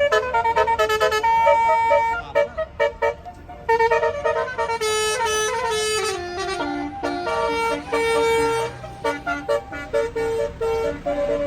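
Bus 'telolet' multi-tone melody horn (Basuri) playing a tune of quick, short notes, with a stepwise falling run about halfway through.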